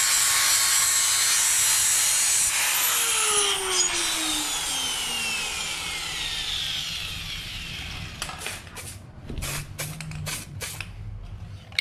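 A power tool running with a loud hissing grind, then switched off; about three seconds in its whine glides steadily down in pitch as it spins down. A run of sharp clicks and knocks follows near the end.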